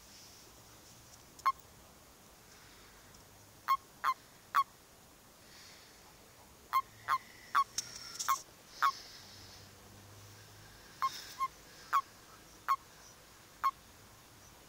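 Male common toads in a mating ball giving short, sharp croaks, about fifteen scattered singly and in quick pairs, typical of the release calls a male gives when clasped by another male.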